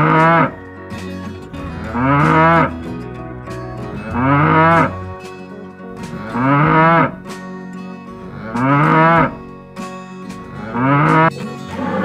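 A cow mooing in short calls, six in all, evenly spaced about every two seconds, each rising and then falling in pitch, over soft background music.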